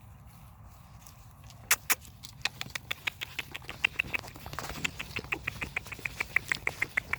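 Puppies scrambling on a metal wagon: a fast run of light clicks and taps, about six a second, with short high squeaks. It starts about two seconds in with two loud knocks.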